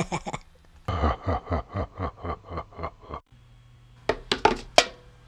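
A dubbed voice laughing in quick repeated syllables, cut off suddenly about three seconds in. About a second later, sharp percussion hits begin a drumbeat.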